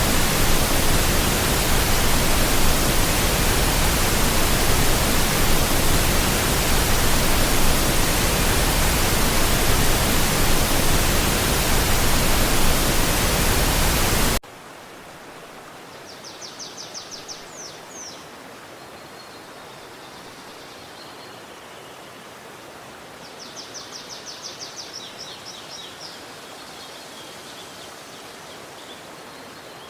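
Loud, steady rushing water, an even hiss with no pattern. About halfway through it cuts off abruptly to a much quieter background of flowing water, over which a small songbird sings two rapid, high trills several seconds apart.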